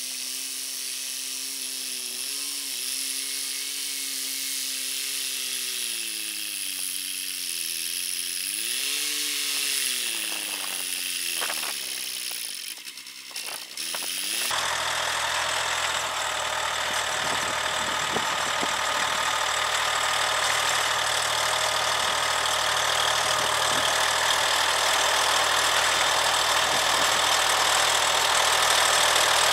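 Compact tractor's engine running under way, its pitch dipping and rising in the first half. About halfway through the sound abruptly becomes fuller and deeper, then grows steadily louder as the tractor comes closer.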